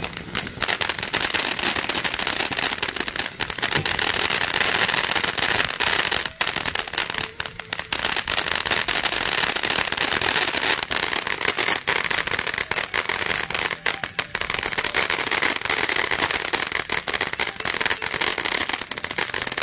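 TNT Tasmanian Cyclone fountain firework burning, spraying a dense, continuous crackle of sparks, with a few brief dips in intensity.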